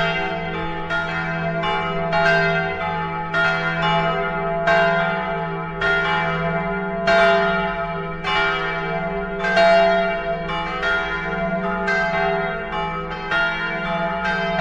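Church bells pealing, several bells struck in an uneven sequence about one or two strikes a second, each ringing out over a steady hum of the bells before it.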